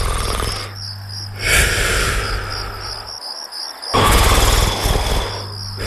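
Snoring: loud rasping snore breaths with a low rattling flutter, coming about every two seconds, over the steady chirping of crickets.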